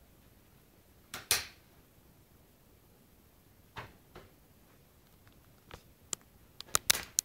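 Calico cat clawing and biting at a deflated rubber balloon on a bedspread: scattered short scrapes and rustles, then a quick run of sharp clicks near the end.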